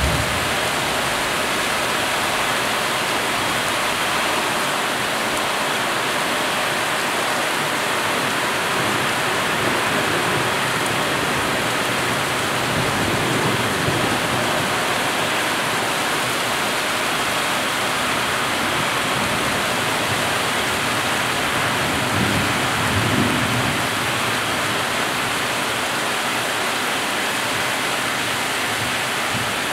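Heavy thunderstorm rain falling in a steady hiss, with two low rumbles of thunder, one about halfway through and one near the end.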